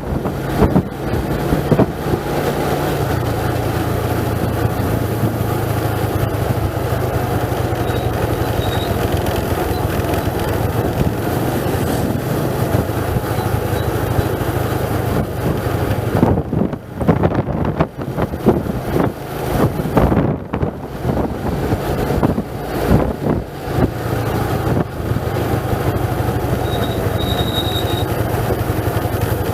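A vehicle's engine running at a steady pitch that steps to a new note about three seconds in, under a constant rush of noise. Rough, gusty buffeting of wind on the microphone breaks in through the middle.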